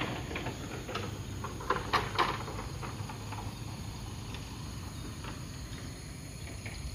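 Crickets and other night insects chirring steadily, with a few faint taps about one to two seconds in.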